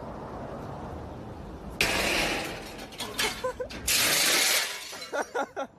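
A large sheet of glass lying on a metal dumpster shatters. It breaks suddenly about two seconds in, crackles on, bursts loudly again a second or so later, then fragments clink and trickle down near the end.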